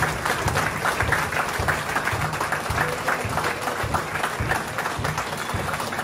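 Crowd applauding while a military band plays a march, its bass drum beating steadily about twice a second.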